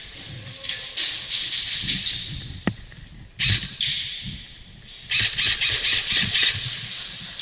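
Three bursts of rapid airsoft gun fire, each a quick run of sharp clicks about a second long.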